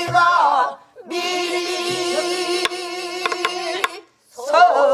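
A woman singing pansori: after a short phrase she holds one long wavering note, while a buk barrel drum gives a few sharp stick strokes beneath it. A new sliding sung phrase begins near the end.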